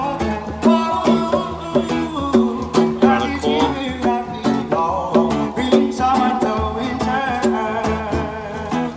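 Upbeat music with guitar and singing over a steady beat.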